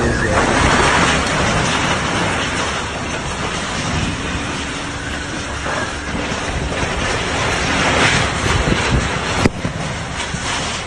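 Strong storm wind from a tornado rushing and buffeting the microphone in a steady loud roar, with one sharp knock about nine and a half seconds in.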